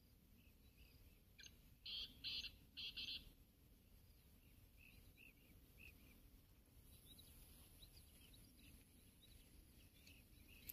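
Birds calling: a cluster of four short, loud high notes about two seconds in, with small faint chirps repeating before and after.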